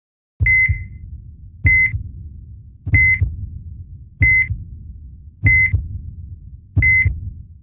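Heartbeat sound effect with an electronic heart-monitor beep on every beat: six beats about 1.3 seconds apart, each a heavy low double thump (lub-dub) under a short high beep, stopping just before the end.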